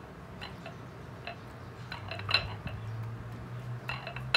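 A fork scraping and clinking against a plate while the skin is peeled off a boiled eggplant and the flesh pressed flat: scattered light taps, the sharpest clink about two seconds in.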